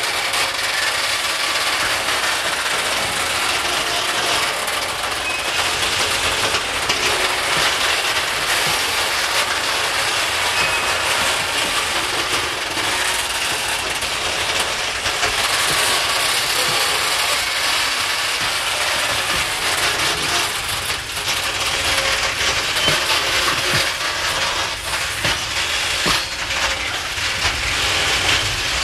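Heavy loaded coal wagons rolling slowly over points and rail joints, with steel wheels clicking and knocking in an irregular patter over a steady rumble and rattle of the wagons.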